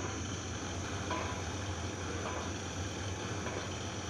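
Steady low hum of a distant diesel locomotive running in the rail yard, over even outdoor noise. Two faint short high beeps come about a second apart.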